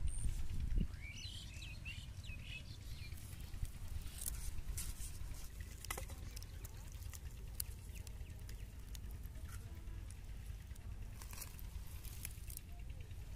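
Faint outdoor background with a steady low rumble, and scattered small clicks and rustles from hands handling plastic bottles, fishing line and leaves, with a few brief chirps about a second in.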